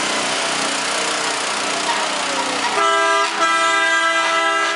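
Vehicle horn honking twice: a short blast about three seconds in, then a longer steady blast that cuts off suddenly, over a steady noisy background.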